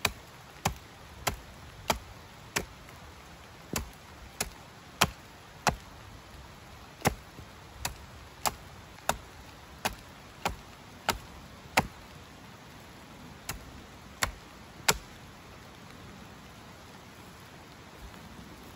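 About twenty sharp, evenly paced knocks, roughly three every two seconds with a few brief pauses, stopping about 15 seconds in: repeated blows of a tool, as in chopping or splitting wood.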